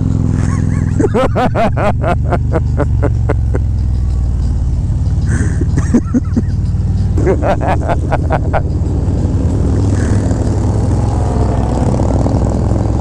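Harley-Davidson motorcycle's V-twin engine running as the bike rides along, a steady low rumble. Twice there is a spell of rapid, sharp pulsing, about a second in and again around seven seconds.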